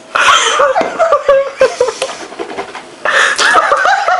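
Laughter broken by two harsh sputtering, coughing bursts, one at the start and one about three seconds in, from a person with a mouthful of dry cinnamon.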